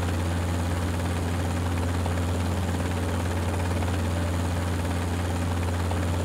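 Sikorsky CH-53 heavy-lift helicopter hovering, its rotors and engines running as a steady deep drone over a wide rushing noise.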